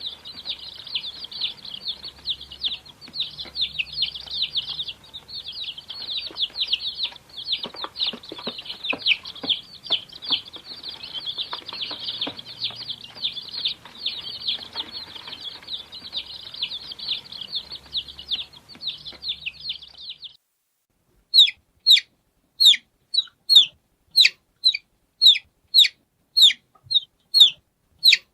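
Baby chicks peeping: for about twenty seconds a crowd of chicks cheeps continuously in a dense high chorus. After a brief silence come single, loud, evenly spaced peeps, each falling in pitch, about two a second.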